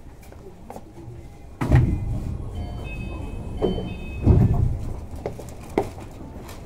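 Tama Toshi Monorail 1000-series train heard from inside the car: a steady low rumble broken by two heavy thumps, about a second and a half and four seconds in, with a few brief high tones between them.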